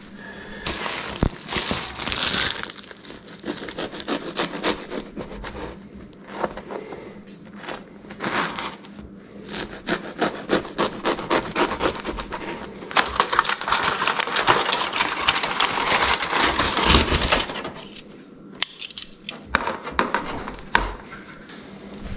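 A knife sawing through long crusty loaves of bread on a wooden cutting board, in repeated back-and-forth strokes, with the crust crackling and the odd sharp knock.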